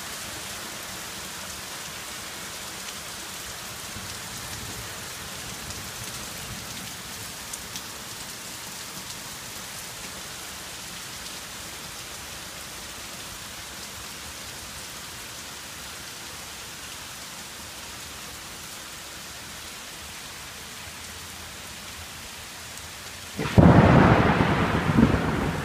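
Steady heavy rain, an even hiss. About 23 seconds in, a sudden loud clap of thunder that carries on to the end.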